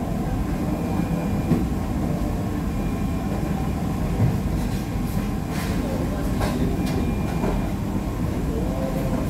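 Steady low rumble of busy fast-food restaurant background noise with faint voices in the distance, and a few light clicks and rustles of food packaging and a paper drink cup being handled about halfway through.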